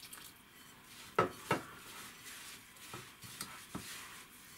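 Glassware clinking in a glass mixing bowl as water is poured onto semolina and gloved hands mix it. There are two sharp clinks about a second in, then lighter taps and soft rustling.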